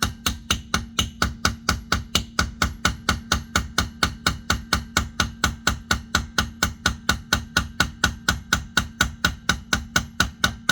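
Air-powered tool hammering at the stuck CV axle, with fast, even blows about four to five a second over a steady hum. It stops abruptly at the end.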